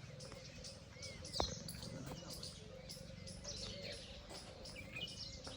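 Many small birds chirping in quick, overlapping short calls over a faint steady low hum, with one sharp knock about a second and a half in.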